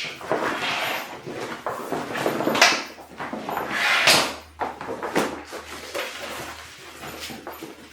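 Stiff PVC duffel bag being handled and unfolded by hand, crinkling and rustling, with louder swishes about two and a half and four seconds in.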